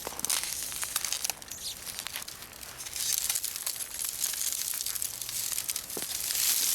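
Ice crunching and crackling: a dense crinkly rustle full of sharp clicks, louder from about halfway and again near the end.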